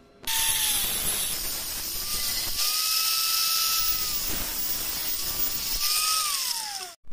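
Angle grinder with an abrasive cut-off disc cutting through a stainless steel tube: a loud, harsh hiss over the motor's whine, which sags in pitch as the disc bites and recovers between. Near the end the grinder comes off the metal and its whine falls away as it spins down.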